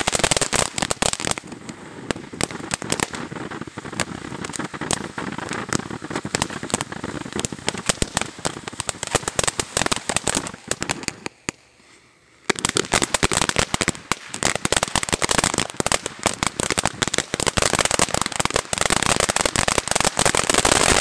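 Pyro Planet Blueberry Moonshine firework fountain burning, giving off a dense, rapid crackle of many small pops. The crackling thins out after the first couple of seconds, stops briefly about halfway through, then comes back loud and thick toward the end.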